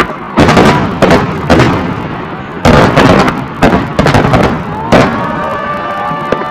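Fireworks display: aerial shells bursting one after another in quick, loud booms and crackles. In the last second or two, whistles sound over the bursts.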